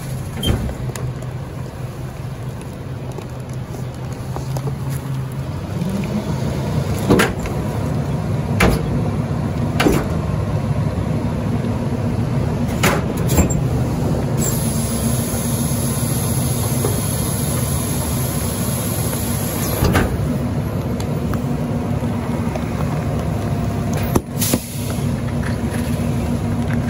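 Rear-loader garbage truck compacting a load: the truck's diesel engine revs up about six seconds in to drive the hydraulic packer, then runs steadily while the packer blade sweeps and crushes the bags, with metal clanks every few seconds and a stretch of hissing midway. The engine drops back to idle near the end, as the cycle finishes.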